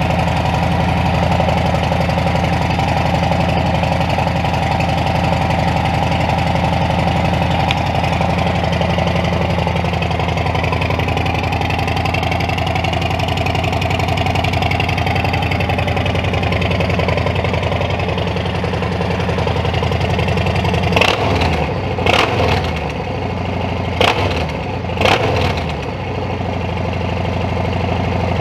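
Harley-Davidson FXDR 114's Milwaukee-Eight 114 V-twin idling steadily through a freshly fitted Two Brothers 2-into-1 exhaust, just after start-up. A few short louder bursts come near the end.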